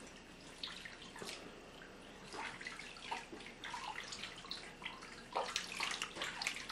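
Water splashing and dripping in a plastic baby bathtub as a baby is washed by hand: faint, small, irregular splashes.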